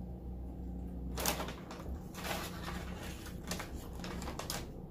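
Short crisp crackles and clicks from eating and handling food at the table, a handful of them starting about a second in, over a low steady hum.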